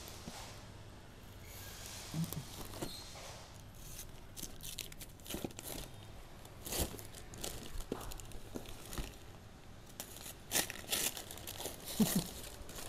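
Newspaper and plastic packing wrap crinkling and rustling as knife packages are handled and unwrapped, with scattered crackles that grow louder and busier in the last few seconds.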